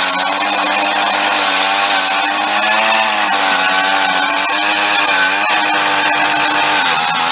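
Gas-powered ice auger's small engine running under load as the spiral bit bores through lake ice, its pitch dipping and recovering as the bit bites.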